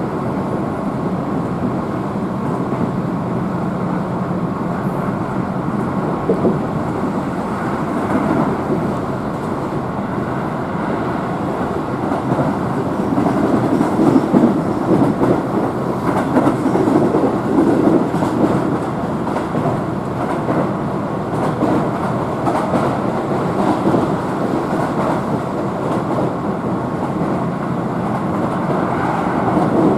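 Keihan Main Line express train running at speed, heard from inside the passenger car: a steady rumble of wheels on rail, swelling louder for several seconds around the middle.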